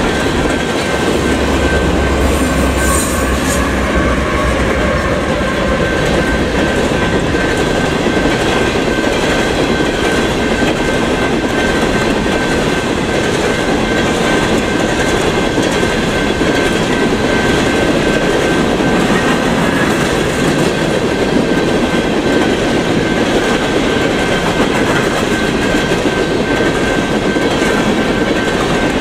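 Empty coal train cars passing a grade crossing at speed, their wheels clattering steadily over the rail joints in a continuous rumble. A thin steady high tone rings throughout.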